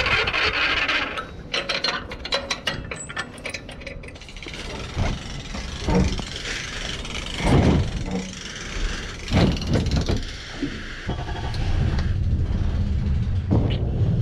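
A boat trailer's geared hand winch clicking rapidly as its handle is worked, followed by scattered knocks and bumps, and then near the end an outboard motor running at a low steady idle.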